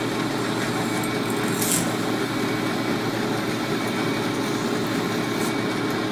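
Milling machine motor and spindle running steadily, with one brief click a little under two seconds in.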